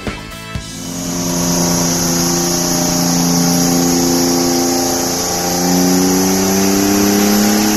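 Supercharged Ford sedan's engine held at high revs during a burnout, its rear tyres spinning in thick smoke. The engine note dips briefly and climbs again about five seconds in.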